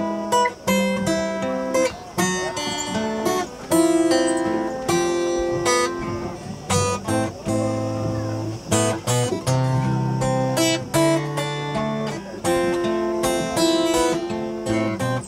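Two acoustic guitars played together, strummed chords with picked notes ringing between the strokes.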